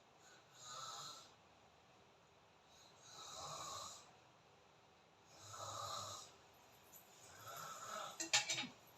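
A person snoring: four faint snores about two and a half seconds apart. The last one is the loudest and ends in a few sharp clicks.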